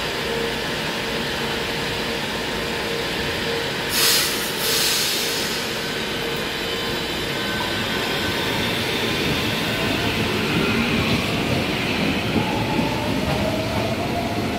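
2000-series Brasília Metro train pulling out of the station. A brief hiss comes about four seconds in, then the electric traction motors give a whine that rises in pitch as the train gathers speed.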